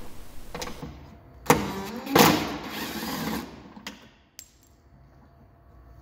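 Cordless drill-driver at work on small screws: a sharp click, then a brief loud burst of the driver about two seconds in, followed by a couple of small clicks.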